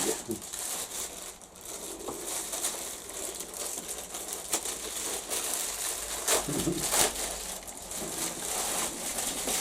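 Packaging rustling and crinkling in the hands as items, a t-shirt first, are pulled from the box: a run of irregular, scratchy rustles.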